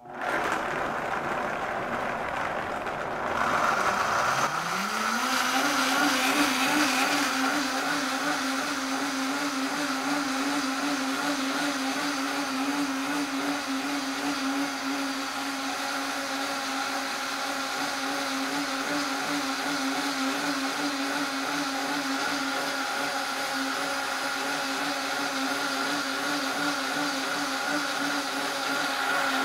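High-speed blender grinding soaked almonds in water into almond milk. The motor starts at a lower speed, rises in pitch about four seconds in, runs steadily at high speed, and winds down as it is switched off at the very end.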